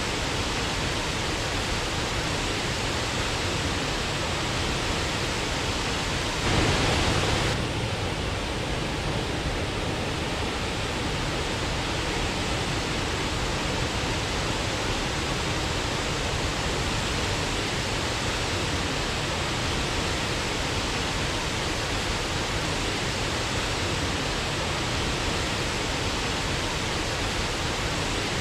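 Waterfall rushing, a steady even roar of falling water, with a brief louder surge lasting about a second roughly a quarter of the way in.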